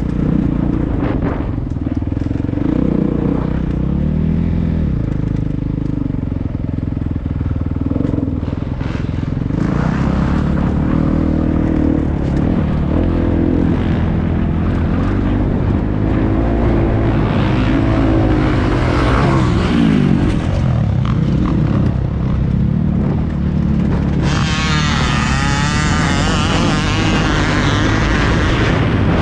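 Dirt bike engine revving up and down repeatedly as it is ridden around a motocross track. About 24 seconds in, a loud rushing hiss joins in over the engine.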